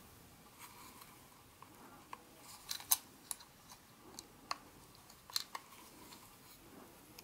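Small items being handled at close range: an irregular string of light, sharp clicks and crinkles, loudest about three seconds in and again near five and a half seconds in.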